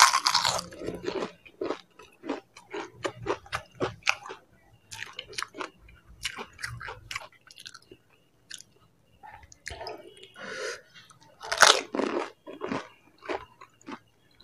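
Close-miked chewing of crisp pani puri, the fried shells crunching. There are loud bites at the start and again about twelve seconds in, with many small crunches between.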